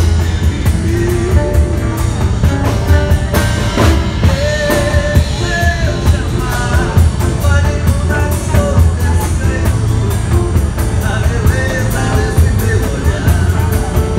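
Rock music with a steady drum beat, guitar and singing.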